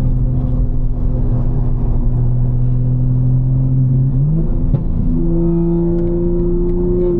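Tuned BMW M4's twin-turbo straight-six engine running at a steady speed with a low, even drone. About four seconds in, its pitch steps up and then holds at the higher note.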